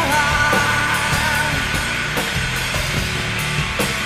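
Rock band playing with heavily distorted electric guitars and drums. A held high note trails off in the first second and a half.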